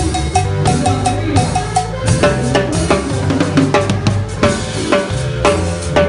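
Drum kit played live with sticks: quick snare and tom strokes with bass drum and rimshots, over a band's bass line.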